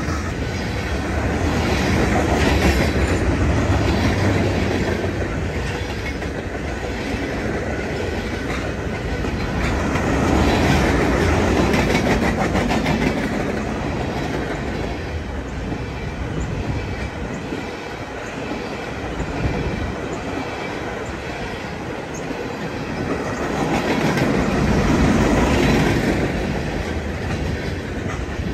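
Freight train rolling past, its wheels clicking over rail joints in a steady rumble that swells louder and softer several times.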